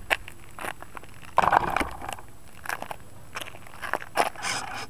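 Irregular crunching and scraping clicks of gravel and grit against the model plane's camera as it slides over the ground and comes to rest.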